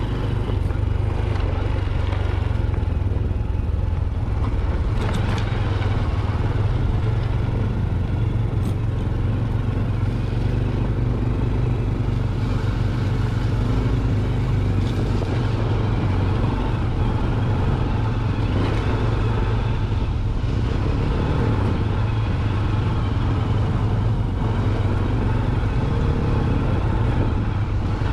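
Honda Trail 125's single-cylinder four-stroke engine running steadily on its stock exhaust as the bike is ridden, with a few faint ticks along the way.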